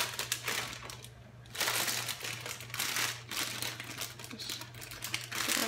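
Tofu, onion, mushroom and snow peas frying in a pan: an irregular crackling sizzle that dips briefly about a second in, over a steady low hum.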